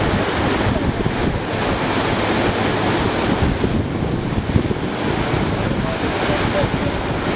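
Steady wind buffeting the microphone over the rush of sea water along a moving boat's hull.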